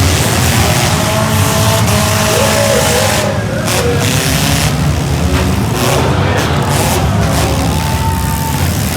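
Compact demolition-derby cars' engines running hard and revving together, loud and continuous, with wavering high-pitched squeals over them.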